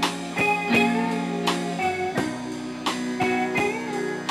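Live band playing blues: electric guitar with bent notes over a steady beat.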